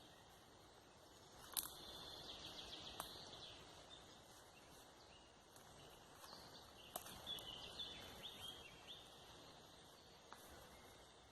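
Faint bird chirps over quiet outdoor background noise, in two short spells, with a few sharp clicks, the loudest about a second and a half in.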